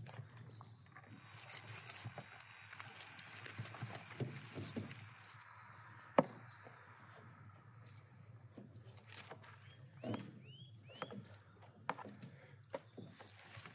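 Carving a roasted whole sheep: a knife scraping and cutting through the crisp skin and meat, then the meat being torn apart by hand, with crackly clicks. One sharp loud click comes about six seconds in, and a few short high chirps follow around ten seconds.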